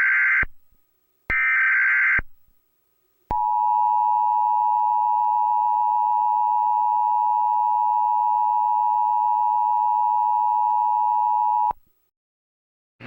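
Emergency Alert System alert tones. The tail of one screeching SAME data header burst is followed by a second burst of about a second. After a short gap comes the steady two-tone EAS attention signal, held for about eight seconds and then cut off abruptly. Together they announce an incoming emergency alert, here a tornado warning.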